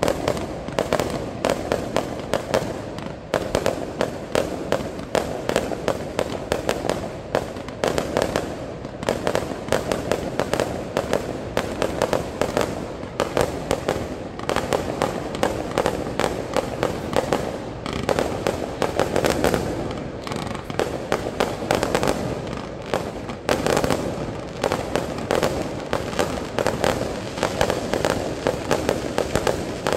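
A fireworks display in a rapid, continuous barrage: many bangs and crackles a second from aerial shells bursting and comets rising, with no break.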